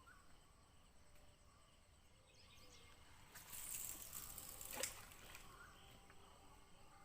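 Faint outdoor ambience with small chirps. A few seconds in comes a brief rustling hiss that ends in a sharp click.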